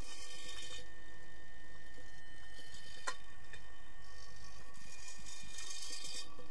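Underwater pool sound picked up by a submerged camera: a steady hum made of several tones, with three rushes of high hiss and one sharp click about three seconds in.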